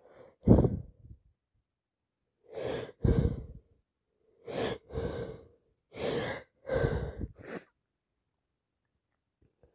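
A person with a head cold gasping through sneeze build-ups and sneezing: a run of about six short, breathy bursts over some seven seconds, the sharpest and loudest about half a second in, then more around three and seven seconds in.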